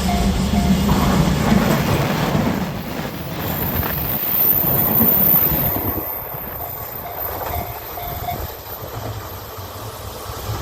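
Diesel railcars of the Ibusuki no Tamatebako train passing over a level crossing: engine and wheel noise loud for the first six seconds or so, then fading as the train moves away. The crossing's warning bell dings in a quick repeating rhythm at the very start and briefly again about eight seconds in.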